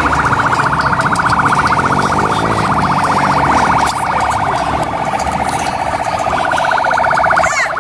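Vehicle siren sounding a fast, rapidly pulsing electronic warble that runs on steadily; near the end it sweeps up in pitch.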